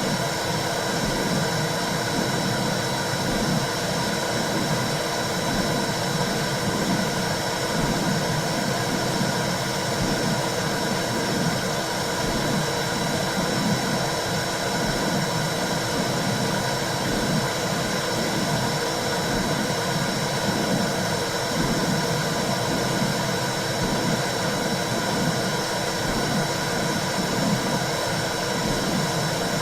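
Womb sound for a newborn: a steady whooshing hiss with a low pulse repeating roughly once a second.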